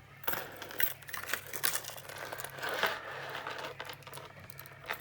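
Close handling noise: a run of small clicks and light rattles with some rustling, as a metal sunglasses chain is handled and fitted onto sunglasses.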